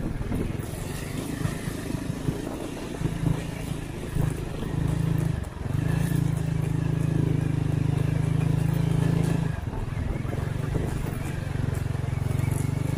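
Honda Win 100's small single-cylinder four-stroke engine running under load while riding on sand. The throttle eases off briefly about five and a half seconds in and again near ten seconds, holding steady and strong in between.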